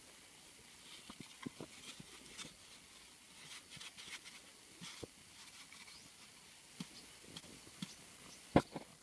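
Faint scattered taps, light knocks and soil scrapes as hands handle and settle a PVC pipe grate over a hole in loose dirt, with one sharper click near the end.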